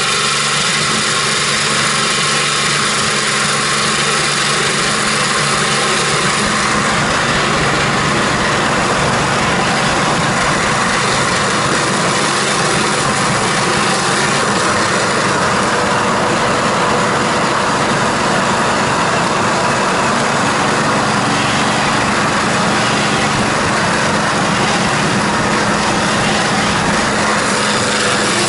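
A Soviet Salut electric juicer (Penzmash SVPR-201) running with a loud, steady vibrating hum while whole tomatoes are pushed in and pulped. Its sound turns noisier and brighter about seven seconds in as it takes the load.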